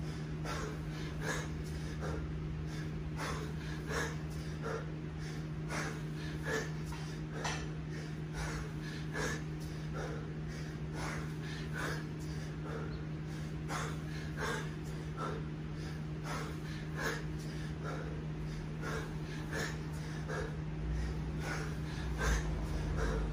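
Hard, rhythmic breathing of a man snatching a 20 kg kettlebell: short forceful breaths, about one and a half to two a second, late in a 10-minute set.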